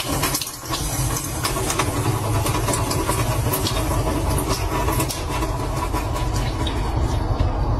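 Water running from a kitchen tap into a stainless steel sink: a steady splashing hiss with scattered small clicks, over a steady low hum.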